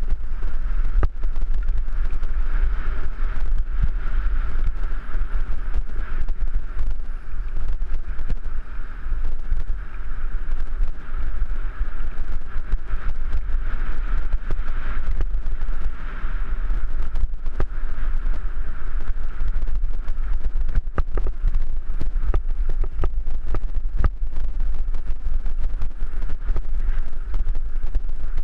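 Wind buffeting a helmet-mounted GoPro Hero3 Black on a fast mountain-bike descent of a gravel path: a heavy steady rumble. Over it come the tyres on loose gravel and frequent knocks and rattles as the bike hits bumps.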